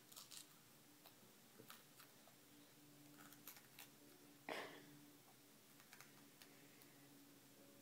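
Near silence: room tone with a faint steady hum, a few faint small clicks, and one brief soft rustle about four and a half seconds in.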